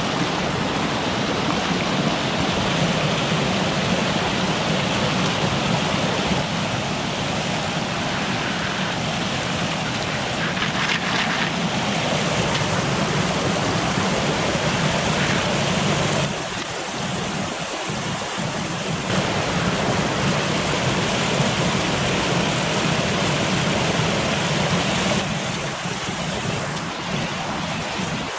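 Small mountain waterfall rushing and splashing over rocks in a steady noise that shifts in tone a few times.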